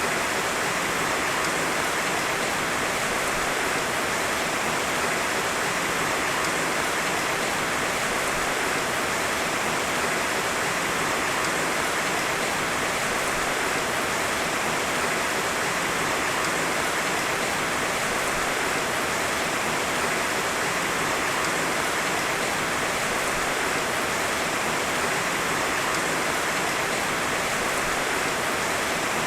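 Heavy rain falling steadily, a dense even hiss of drops with no thunder.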